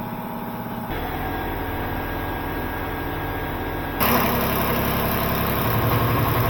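A steady mechanical hum, most likely the water pump running while the softener backwashes. The hum jumps abruptly louder about a second in and again about four seconds in.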